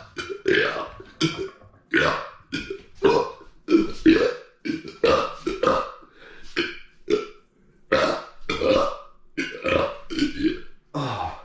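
A man belching in a quick run of short burps, about two a second.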